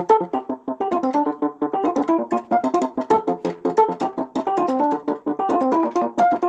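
Samsung Galaxy ringtone: a quick electric-piano-style keyboard melody of many short, rapid notes, stopping near the end.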